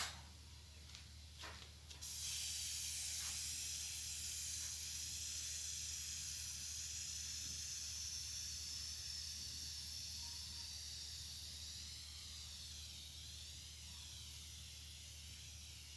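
Spray gun hissing as it sprays finish, starting about two seconds in after a few faint clicks. The hiss holds steady, then wavers in tone near the end while slowly fading.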